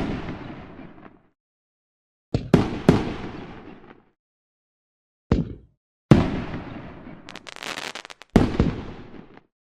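Fireworks going off: sharp bangs, each trailing off into a fading rumble over about a second, in groups with dead silence between them, and a quick run of crackling shortly before the last bang.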